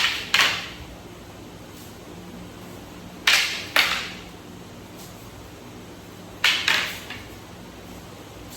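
Escrima sticks striking each other in a double-stick drill: three pairs of sharp clacks, the two hits in each pair about half a second apart, each with a short ringing tail.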